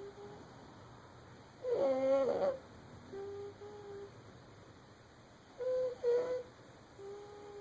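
Baby snoring in sleep: short pitched, whistle-like breath sounds. Louder, squeaky snores with many overtones come about 2 and 6 seconds in, and they alternate with softer steady whistling tones on the other breaths.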